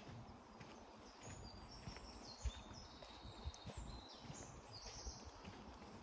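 Footsteps on a dirt forest path. A bird sings a run of short, high, level notes that jump between pitches, from about a second in until about five seconds in.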